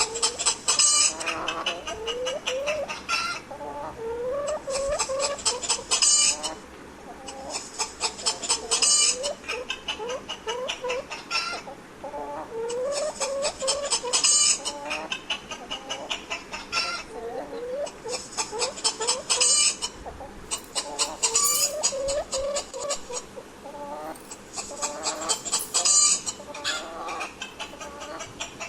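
Hens clucking, short repeated clucks throughout, with bursts of a higher-pitched rapid chattering recurring every few seconds.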